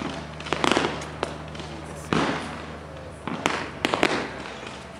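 Aerial fireworks exploding in a string of sharp bangs, each trailing off in a crackling echo. A cluster of bangs comes about half a second in, a single one just after two seconds, and a quick run of several between three and a half and four seconds.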